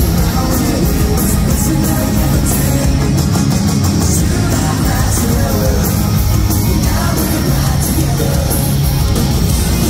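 Pop-punk band playing live and loud: electric guitars, bass and drums with a sung lead vocal, heard from within the arena crowd.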